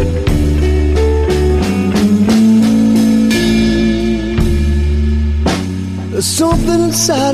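A blues-rock record playing: a drum kit keeps a steady beat under bass and guitar, with bending guitar notes near the end.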